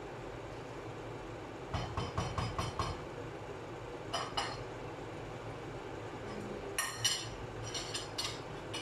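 Wooden spoon knocking against a stainless steel pan as the pork in it is stirred: a quick run of clinks about two seconds in, two more just after four seconds, and another run near the end, over a steady low background noise.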